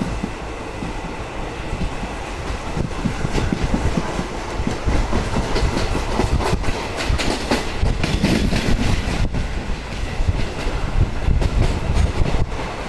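Train running along the track, heard from inside the coach: a steady rumble and hiss of wheels on rails, with repeated clicks as the wheels cross rail joints.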